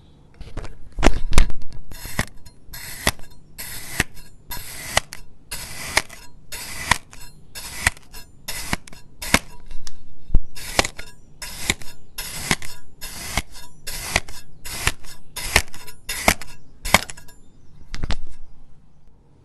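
A knife slicing and scraping through kinetic sand in quick repeated strokes, each a short gritty swish with a sharp click of the blade, about one and a half a second, stopping near the end after a last single stroke.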